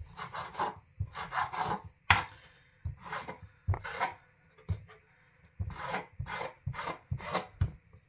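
Kitchen knife cutting raw bacon rashers on a chopping board: irregular knocks of the blade on the board with short slicing strokes, about two a second.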